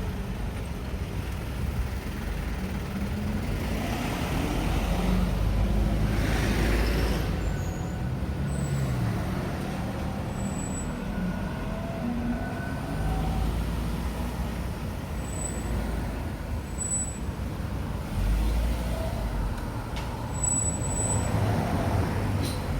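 Road traffic at a crossroads: cars and heavier vehicles running and passing, with a steady low rumble that swells as they go by.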